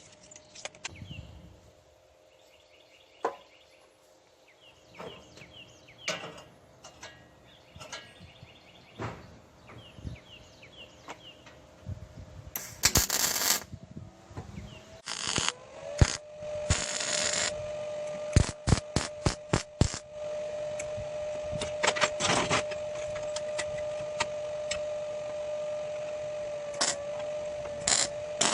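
Workshop sounds of steel parts being handled: scattered clanks, clicks and knocks, with a few short loud bursts of noise near the middle. About halfway through, a steady hum comes on with a short upward glide and holds.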